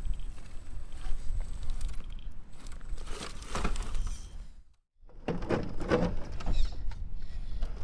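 1:10 scale RC rock crawler working over rock: drivetrain and motor noise mixed with clicks and scrapes of tyres and chassis on stone. The sound cuts out for a moment a little past the middle, then resumes with clustered clicks and scrapes.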